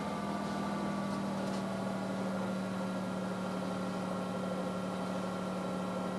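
Sailboat's inboard diesel engine running steadily at raised revs in reverse, pulling back on the anchor to set it.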